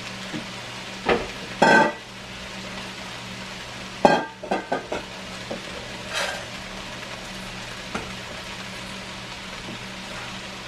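Diced potatoes and sausage sizzling steadily as they fry in a pot, over a low steady hum. Several loud clatters of kitchenware break in, with a quick cluster of them about four seconds in.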